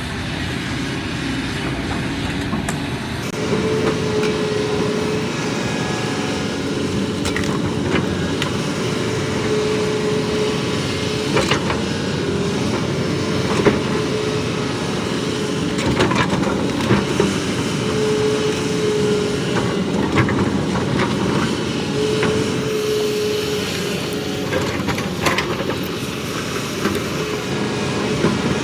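Excavator's diesel engine running steadily while the machine works. A steady whine comes and goes several times, and there are scattered sharp knocks and clanks.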